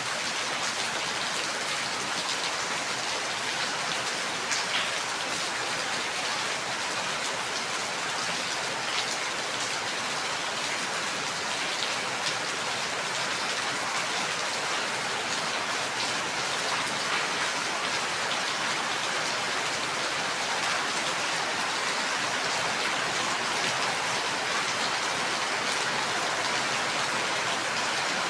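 Steady heavy rain falling, a dense even hiss with scattered individual drops ticking on a surface.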